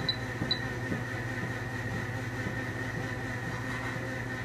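Steady low hum with a thin, steady high tone from running equipment in a veterinary dental treatment room, with a few short high beeps near the start and faint small ticks.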